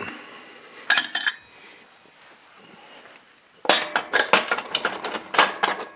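A short cluster of clicks about a second in, then a quick run of light clicks and knocks, several a second, through the second half.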